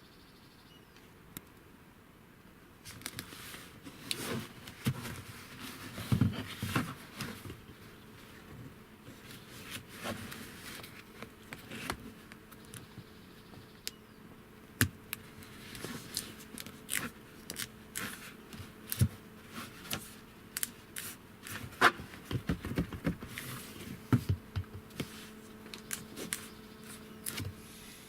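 Irregular clicks, taps and scrapes of small hard parts being handled. They start about three seconds in, and a faint steady hum runs underneath.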